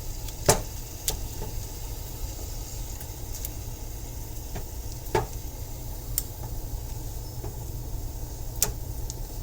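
A few sharp clicks and knocks of a utensil against a dish and pan as butter is taken out for the skillet, the loudest about half a second in, over a steady low hum.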